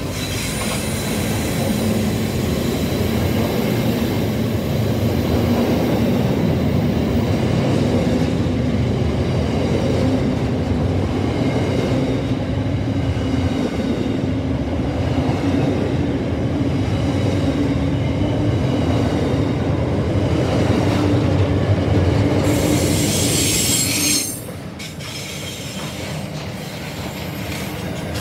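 Container freight wagons rolling past close by, a loud continuous rumble of steel wheels on rail. A high wheel squeal rises about 22 seconds in, then the noise drops sharply about 24 seconds in as lighter wagons follow.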